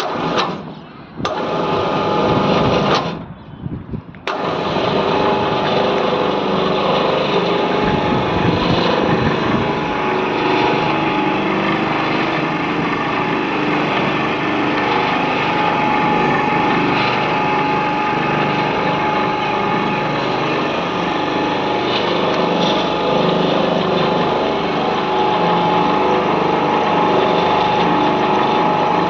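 A 500 kg monkey hoist (construction material winch) running. It sounds in a few short stop-start bursts at first, then from about four seconds in runs steadily with a constant whine.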